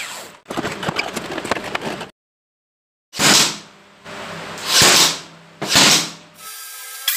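Blue cordless brad nailer driving nails into a pine strip: three loud shots about a second apart, with a steady hum between them. It comes after a few seconds of rough scraping noise and a sudden cut to silence, and music begins near the end.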